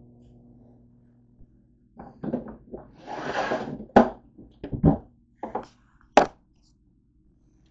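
Rummaging in a plastic bin: a run of sharp knocks and clunks, with a brief rustle of plastic bagging about three seconds in. A faint low hum sits underneath.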